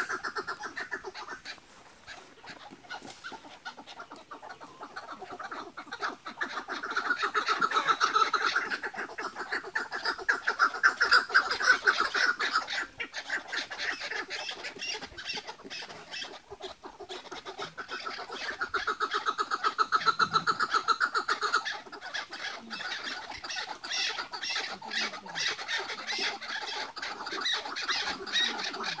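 Chukar partridges calling: long runs of fast, chattering chuck notes, the excited 'hıngırma' call of males calling against each other. The calling swells louder in two long bouts in the first half and again past the middle.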